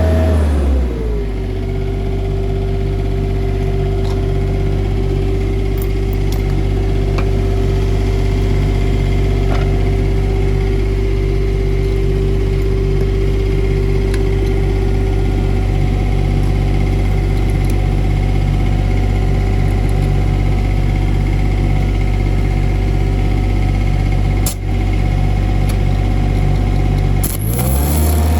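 Denyo BLW-280 SSII engine welder's engine running: it slows from a high speed to a lower steady speed about a second in, runs steadily, then speeds back up near the end.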